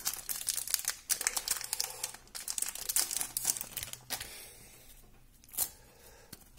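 Foil trading-card pack wrapper crinkling and tearing as it is handled and opened, dense for about four seconds, then one short crinkle near the end.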